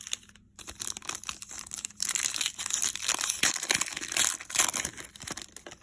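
Foil wrapper of a 2020 Donruss football card pack being torn open and crumpled: a dense crinkling that starts about half a second in, is loudest from about two seconds in, and dies away near the end.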